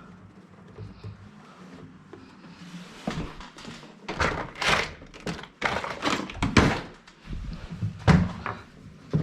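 Irregular knocks and rasping scrapes as a cable is forced through a hole in a wall, catching on a bend inside it. The scrapes come thickest in the middle, with a sharp knock near the end.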